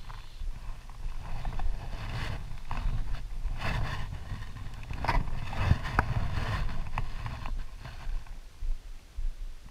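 Water sloshing and splashing close to the microphone, with a cluster of rushes and sharp clicks in the middle, over a steady low rumble.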